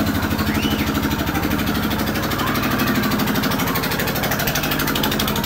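An engine idling steadily with a rapid, even pulse and a low hum.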